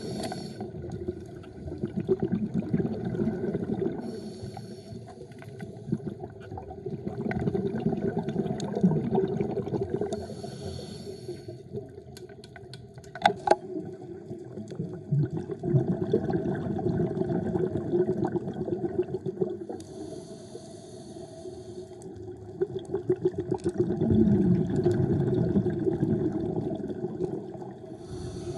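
Scuba regulator breathing heard underwater: short hissing inhalations alternate with longer rushing, gurgling swells of exhaled bubbles, a few breaths in all, with a sharp click about midway.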